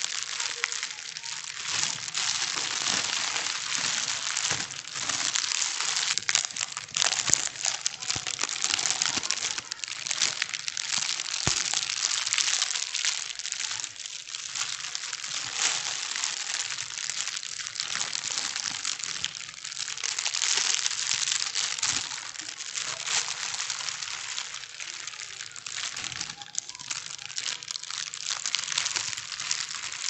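Plastic bags being crumpled and scrunched without pause: a dense, continuous crinkling full of small sharp crackles.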